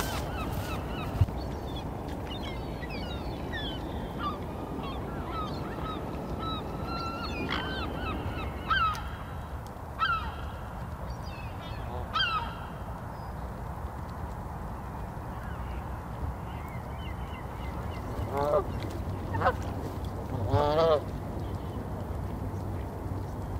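Canada geese honking: a scatter of short calls through the first half, then a few louder honks near the end.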